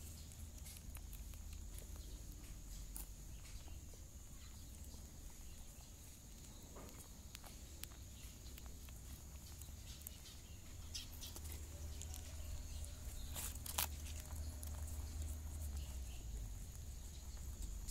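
Faint scattered clicks and rustles from a mother rabbit and her nursing kits moving against a woven mat, over a steady low rumble and a thin high hiss.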